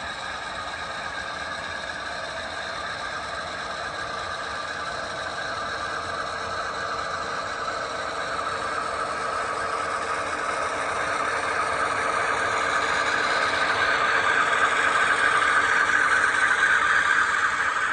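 HO scale model freight train led by two model diesel locomotives running past on the track, with a steady mechanical running sound. It grows louder as the locomotives draw near and is loudest near the end.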